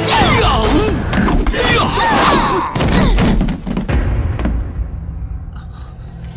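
Fight-scene sound effects: heavy thuds and blows over dramatic film music. About three seconds in, the action dies down to a low musical drone.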